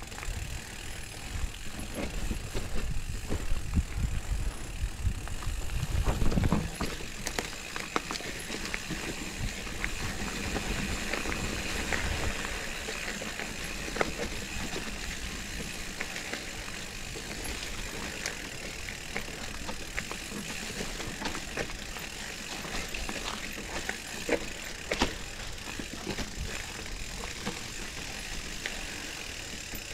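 Mountain bike descending a forest trail: tyres rolling over dry leaf litter and dirt, the bike rattling and jolting over bumps, with the rear freehub ticking while coasting. Heavy low rumble and knocks from rough ground in the first six seconds or so, then a steadier ride with scattered clicks.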